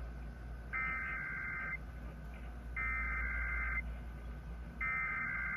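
Emergency Alert System header data tones coming over a car radio: three identical warbling bursts of about a second each, two seconds apart, that mark the start of an EAS test broadcast.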